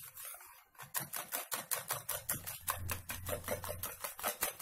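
Wire whisk beating runny pancake batter by hand in a plastic bowl, the wires clicking against the bowl in a quick, even rhythm of about six strokes a second, starting about a second in.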